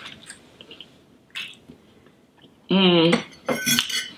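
Metal fork clicking and scraping against a small foil tin and plate while eating, in scattered sharp clinks that come more often near the end. A short vocal sound comes about three seconds in.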